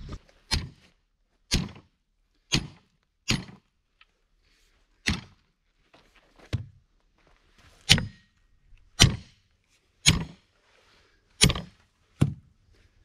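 Sledgehammer striking steel form pins and the stake puller set on them, about eleven sharp blows at uneven intervals of roughly a second, to loosen the pins holding the footing forms.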